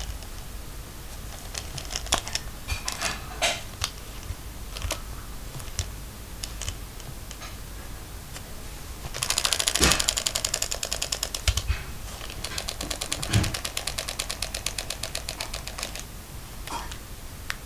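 Clockwork of a wind-up toy mouse: a few scattered clicks, then two runs of rapid, even ticking as the mechanism runs. The first run comes about nine seconds in, and the second, lasting about four seconds, about twelve seconds in.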